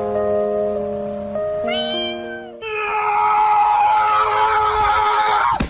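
Background music, then about halfway a husky's long drawn-out howling call, held on one pitch for about three seconds and dropping sharply at the end.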